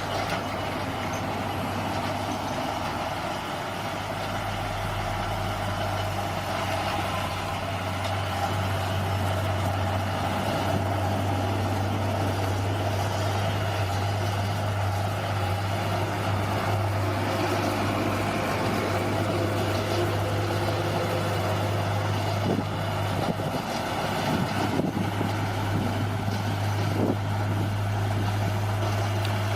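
Bulldozer's diesel engine running steadily, with a deep constant hum and a few short knocks in the last several seconds.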